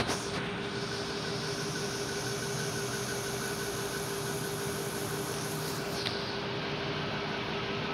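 A steady mechanical hum with an even hiss and one constant droning tone, unchanging throughout; a faint tick about six seconds in.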